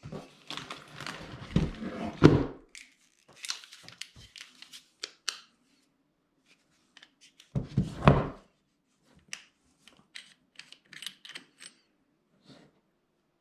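Packaging being handled during an unboxing: rustling and tearing of cardboard or wrapping for the first couple of seconds, scattered clicks, a heavy thud about eight seconds in, then lighter taps and clicks.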